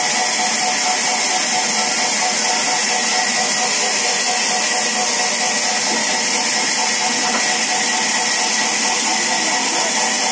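Sawmill saw machinery running steadily: a constant loud hiss with steady whining tones through it.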